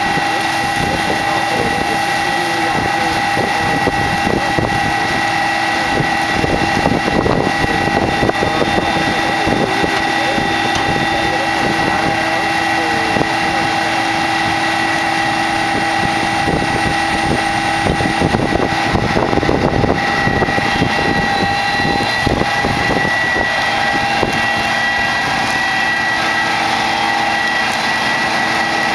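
Krone BiG X 1100 self-propelled forage harvester running, its engine and drives making a steady loud noise with several steady whines. Irregular rattling comes through in places, and one of the lower tones drops out about two-thirds of the way through.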